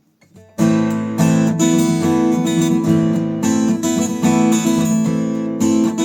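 Newtone Gypsy Road GA 45 acoustic guitar played unplugged, strumming chords that start about half a second in and ring on between strokes.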